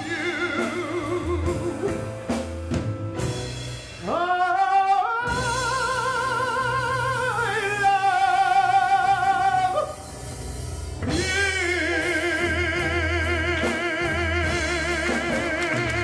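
A man singing in a big, operatic style with live band accompaniment: long held notes with a wide vibrato, scooping up into a new sustained note about four seconds in and again about eleven seconds in.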